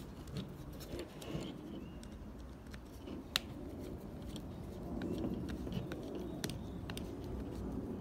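Phillips screwdriver turning a small screw into a door lock actuator on a latch assembly: quiet scraping and handling with scattered small clicks of metal and plastic, the sharpest about three and a half seconds in.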